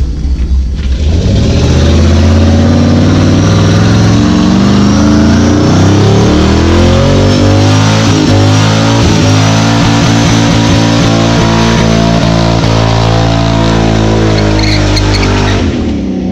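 Loud music with held chords that step from one to the next, mixed with a pickup truck's engine revving hard through a tyre-smoking burnout.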